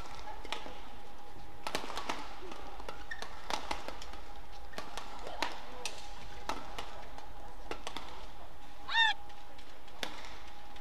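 Badminton rally: sharp racket strikes on the shuttlecock at irregular intervals, under a faint steady hum. About nine seconds in, a player's shoe gives one loud, short squeak on the court floor.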